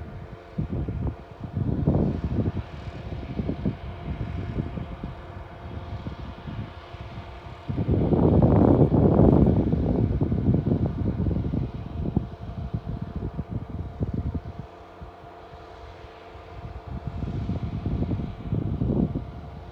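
Snowcat's diesel engine running under load as it pushes and grades snow, rising and falling in loudness, loudest from about eight to eleven seconds in.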